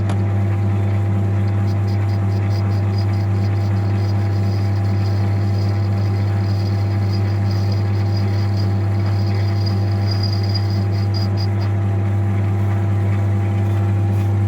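Lathe running steadily with a strong low hum while a boring tool skims out the combustion bowl of a VW 1.9 TDI piston held in a four-jaw chuck. A faint light ticking comes about three times a second through most of it.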